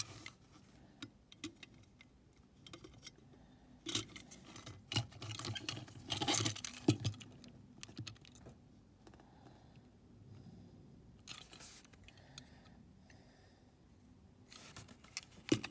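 Small die-cast metal toy trucks clicking and clinking as they are picked up, turned over and held together in the hands. A busier cluster of clinks comes from about four to seven seconds in, then only occasional faint handling.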